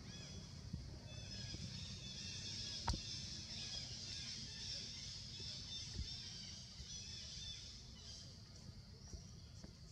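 Forest ambience: a dense, high chorus of birds chirping, swelling in the middle and thinning near the end, over a steady low rumble. One sharp click comes about three seconds in.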